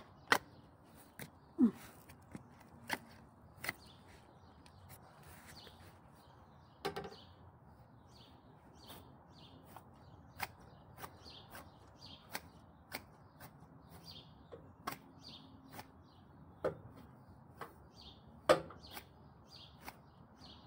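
Hand shears snipping long grass: sharp, irregular clicks about once or twice a second, a few much louder than the rest. Faint bird chirps sound in the background.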